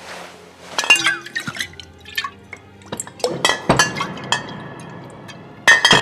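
Glassware clinking and knocking together in a quick irregular run of sharp, ringing clicks, with a few liquid drips among them and a louder glass clatter near the end.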